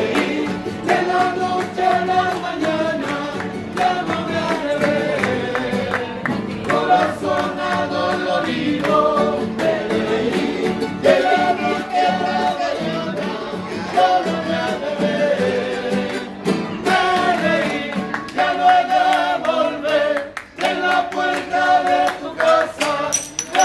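Live singing by several men, accompanied by strummed acoustic guitar, with hand clapping keeping time.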